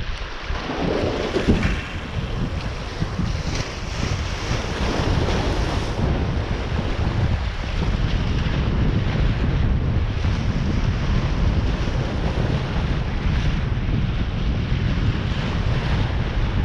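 Wind buffeting the microphone, a steady rushing noise with a heavy low rumble.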